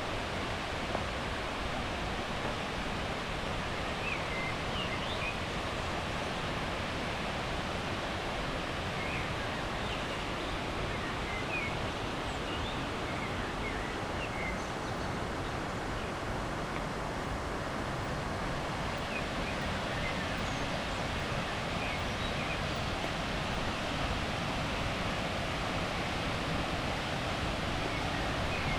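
Steady rush of water, with faint short bird chirps now and then.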